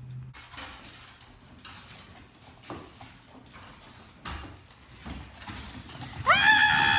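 Small dogs' claws clicking and scrabbling on a hard floor as they run in through an opened door, a few scattered faint clicks and knocks. About six seconds in, a loud tone rises and then holds steady to the end.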